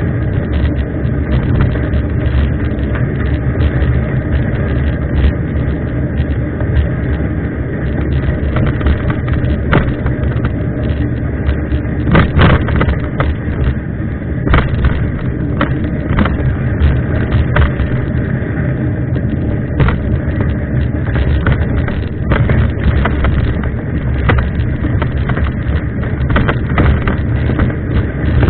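Continuous wind and riding rumble from a mountain bike moving along a trail, with frequent short knocks and rattles from bumps, strongest about twelve seconds in.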